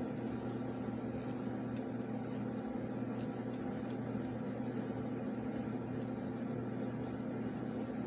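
Steady electrical hum of a running appliance, with a few faint ticks over it.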